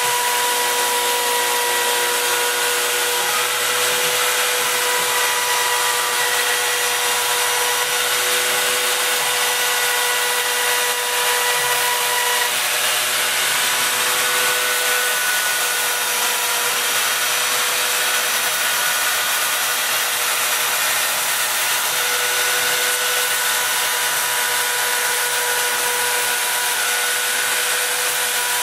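Homemade CNC router cutting: its spindle motor runs steadily while the bit cuts through the sheet, with whining tones that start, stop and shift pitch every few seconds as the gantry's moves change.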